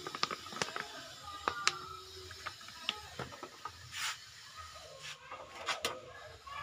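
Cooking oil heating in a wok, with sparse faint clicks and ticks and a brief hiss about four seconds in.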